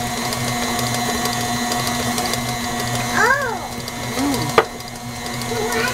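KitchenAid stand mixer running steadily, its motor and gears humming as the beater works thick cookie dough of oats and flour. A sharp click comes about four and a half seconds in.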